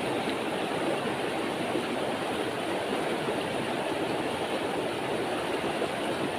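Fast-flowing river water running over rocks and riffles: a steady, even rush.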